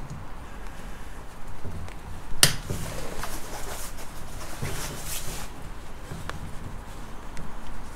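Hand work on a flat electrical cable's plastic sheath: one sharp click about two and a half seconds in, then short scraping, rustling sounds as the sheath is worked by hand.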